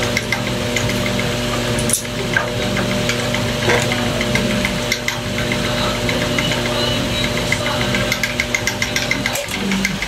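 Electric motor of a belt-driven snap-button press running with a steady hum, under scattered sharp metal clicks and taps from hand tools on the press's setting head, with a quick run of clicks near the end.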